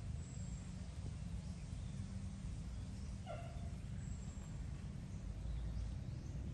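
Steady low outdoor rumble with one short animal call about three seconds in, and faint high thin chirps.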